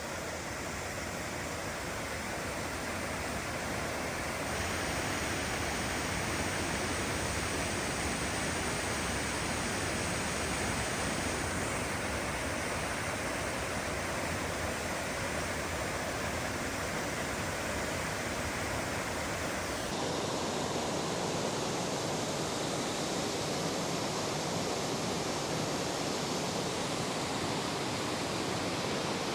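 Stockghyll Force waterfall carrying a lot of water: a steady, loud rush of falling water, shifting slightly in tone a few times.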